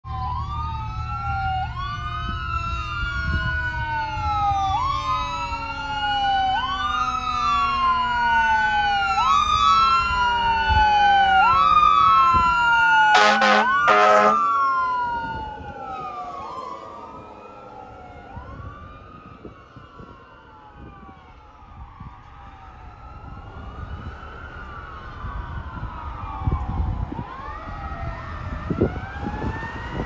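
Fire engine siren sweeping up and down about every second and a half, with a lower tone sliding steadily down beneath it. Two short horn blasts come about 13 seconds in, after which the siren fades into the distance.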